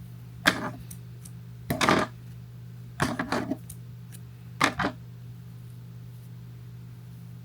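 Four short bursts of clicking and clattering from small objects being handled, over a steady low hum.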